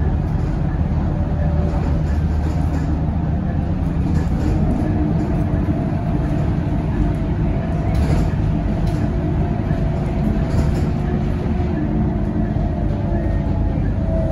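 Cabin noise aboard a Scania K230UB single-deck city bus under way: the steady drone of its diesel engine and driveline mixed with road rumble, with a few light clicks and rattles from the body.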